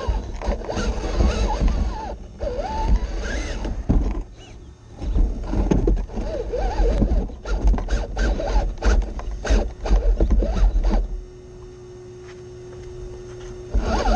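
Axial SCX6 RC rock crawler's motor and gears whining, rising and falling in pitch with the throttle, while its tyres and chassis scrape and knock over sandstone rock. About eleven seconds in the scraping and knocking stop and a steady hum holds for a few seconds before the crawling noise returns near the end.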